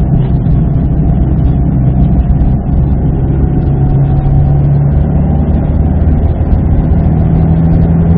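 Subaru WRX STI's turbocharged EJ20 flat-four engine and road noise heard from inside the cabin while driving a winding road. The engine note rises and falls with the throttle: it climbs about three and a half seconds in, eases off near five seconds and climbs again near the end.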